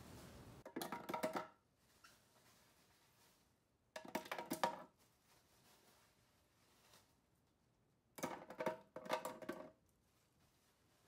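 Ice cubes poured from a plastic bag clattering into a plastic blender jar, in three short bursts of clinks a few seconds apart.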